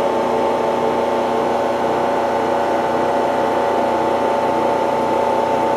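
Vacuum pump of a Multicam MT22 CNC router's vacuum hold-down table running steadily after being switched on, a constant hum with a steady whine over it.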